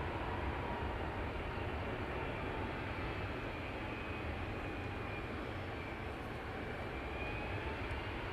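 Boeing 767-300ER jet engines at takeoff power, a steady rumble and hiss with a faint whine, slowly growing quieter as the airliner moves away.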